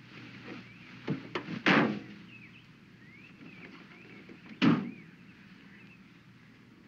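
A car door slams shut twice, about three seconds apart. The first slam is preceded by a couple of short knocks.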